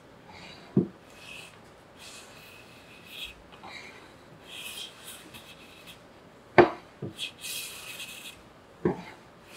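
Hand plane cutting shavings along the edge of a solid-wood tabletop: about five short hissing strokes, with a few sharp wooden knocks between them. The loudest knock comes about two-thirds of the way through.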